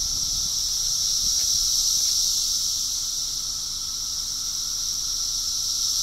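Chorus of Brood X periodical cicadas: a loud, steady, high-pitched drone.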